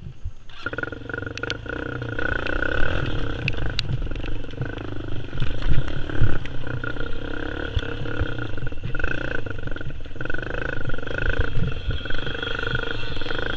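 Quad bike engine running under throttle, picking up about half a second in and then holding a steady drone, with low rumbling wind buffeting and knocks from the bumpy ride on the helmet-mounted camera.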